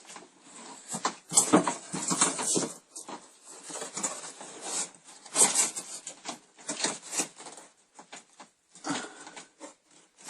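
Irregular scraping, rustling and light knocks of wooden pieces being handled and worked into place by hand.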